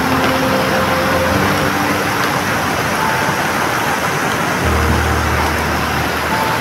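Muddy floodwater rushing in a fast torrent under heavy rain, a loud, steady rushing noise.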